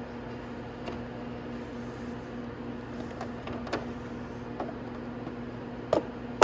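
Light clicks and knocks of a motorcycle's plastic fairing panels being worked loose by hand, with a sharper knock near the end, over a steady low electrical hum.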